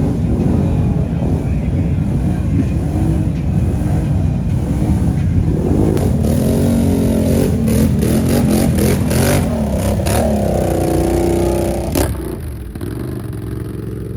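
Can-Am Outlander ATV's V-twin engine revving up and down as it is ridden, with a run of clicking and clatter in the middle. Near the end there is a sharp knock, and after it the engine sound is quieter.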